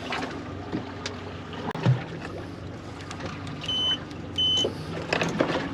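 Two short, high electronic beeps less than a second apart, over a steady low hum from the boat, with a few light knocks.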